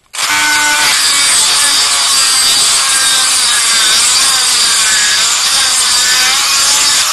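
Black & Decker RTX rotary tool running on medium speed with a stone grinding bit, sanding out the inside of a short 1/2-inch PVC pipe stub. It starts suddenly just after the beginning and runs steadily as a loud grinding with a faint wavering whine.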